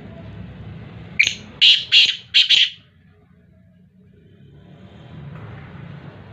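Male black francolin (teetar) calling: four loud notes in quick succession about a second in, over a steady low background noise.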